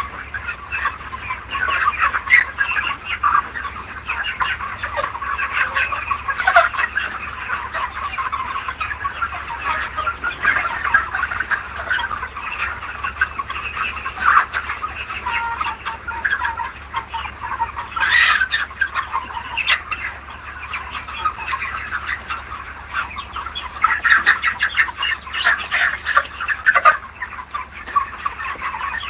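A flock of chickens clucking continuously, many birds calling over one another, with a steady low hum underneath.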